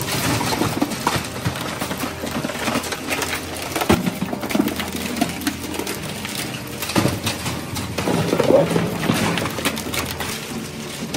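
Maxin India twin-shaft shredder's toothed cutters tearing and crunching a metal pail and sheet-metal scrap: a continuous irregular crackle of tearing metal, with a few loud sharp cracks, over a low steady machine hum.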